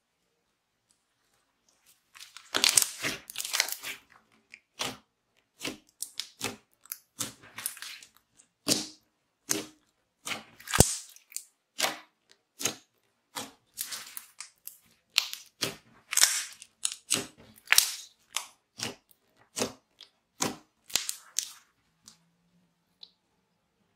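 Glitter-and-bead clear slime being squished, stretched and poked by hand, giving a long irregular run of sharp wet pops and clicks. It starts about two seconds in and stops near the end.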